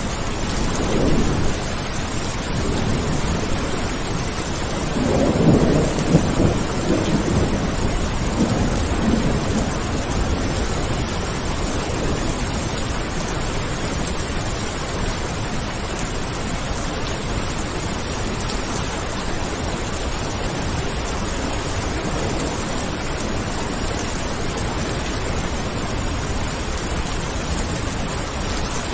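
Steady rain falling, with rolling thunder: a short rumble about a second in and a longer, louder rumble from about five to ten seconds in.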